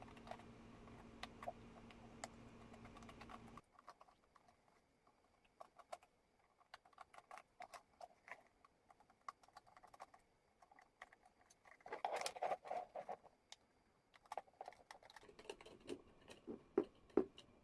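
Faint scattered clicks and taps of small parts being handled and worked loose while an electric kettle is taken apart. A low hum stops about three and a half seconds in, and the clicks bunch up louder twice in the second half.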